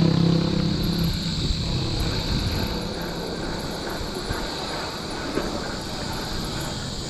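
Steady low rumble of wind on the microphone and tyre noise from a mountain bike riding a trail, under a constant high hiss. A motor's hum fades away within the first second.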